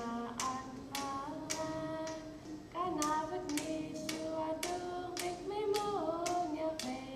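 Voices singing a Yupik dance song, one melodic line with sliding notes, over sharp, even beats about twice a second.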